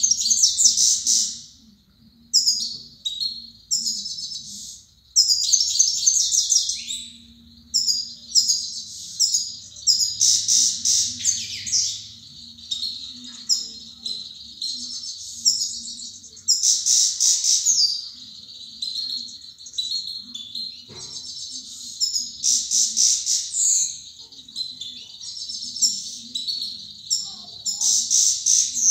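Caged songbird singing: bright, rapid twittering phrases in bursts of a second or two, repeated again and again with short pauses between.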